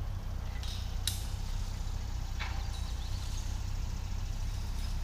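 A few light metallic clicks and clinks from a wrench tightening a nut on a steel livestock-panel connector, over a steady low rumble.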